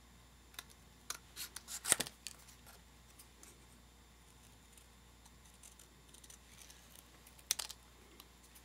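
Scissors cutting paper: a quick run of sharp snips about a second or two in, and another short burst of snips near the end.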